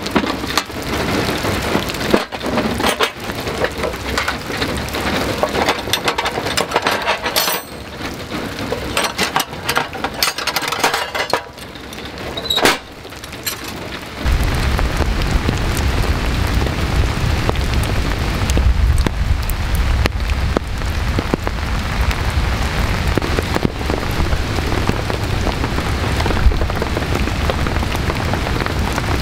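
Heavy rain falling steadily on a wet campsite. A few sharp knocks come in the first half. About halfway the rain turns into a steadier rush with a deep rumble underneath.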